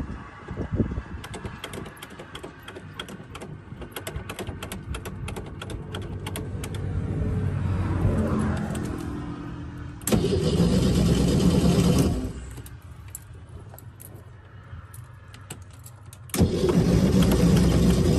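Classic VW Beetle's air-cooled flat-four being cranked on the starter: two loud stretches of cranking, about two seconds just past the middle and again from near the end onward. Before that, a quieter stretch of rapid clicks and a low engine sound that swells and then fades.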